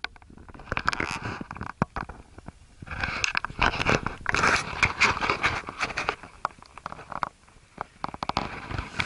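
A hiker breathing hard close to the microphone, with scraping and rustling of clothing and footsteps on rock. The breathing is loudest about three to six seconds in.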